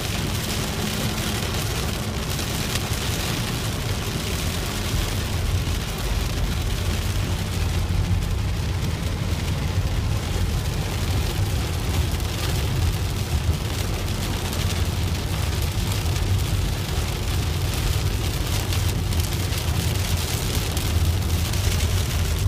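Rain falling on a moving car, a steady hiss over a constant low rumble of road and engine noise.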